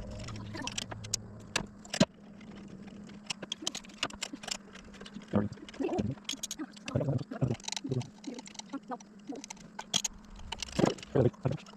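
Rapid, irregular clicks, clinks and knocks of hand tools and metal parts being handled during engine reassembly, with one sharp click about two seconds in, over a steady low hum.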